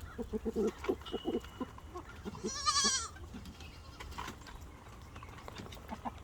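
Farm animal calls: a run of short, low notes, then one high, wavering call about two and a half seconds in.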